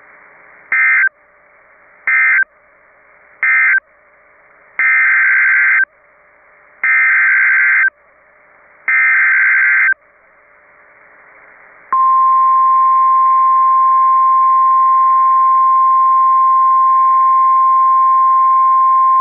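NOAA Weather Radio Emergency Alert System tones: three short screeching SAME data bursts (the end-of-message code), then three longer one-second SAME header bursts for the rebroadcast warning. About twelve seconds in comes the steady 1050 Hz weather radio alert tone, heard through a radio receiver with faint hiss between the bursts.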